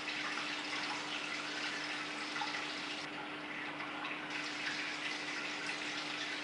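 Steady rush of circulating water in a large aquarium, with a steady low hum underneath.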